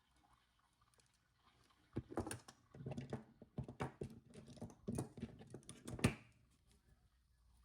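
Small metal clicks and taps of a one-step looper tool working beaded head-pin wire: a run of quick ticks beginning about two seconds in and lasting some four seconds, the sharpest click near the end.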